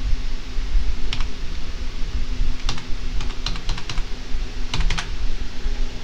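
Computer keyboard keys clicking in short runs: a single keystroke about a second in, a quick flurry in the middle and another just before five seconds, over a steady low background hum.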